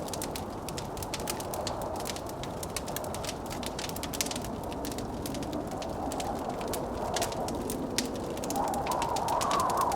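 Crackling wood fire, with many small sharp pops, over the steady rush of blizzard wind; the wind swells louder near the end.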